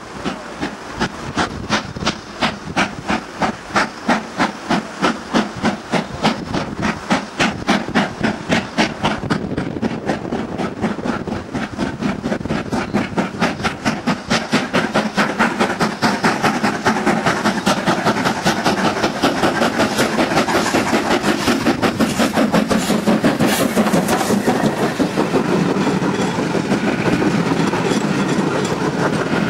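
BR Standard 2-6-4T tank locomotive 80079 pulling away with a train, its steam exhaust beating sharply and evenly and quickening as it gathers speed. Near the end its coaches run close past with a steady rolling rumble.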